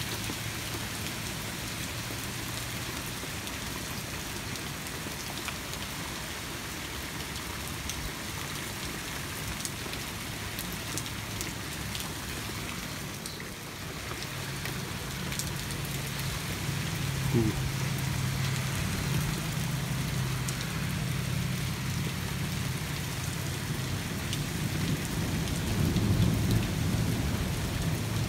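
Steady hard rain, with a long low rumble of thunder that comes in about halfway and swells near the end.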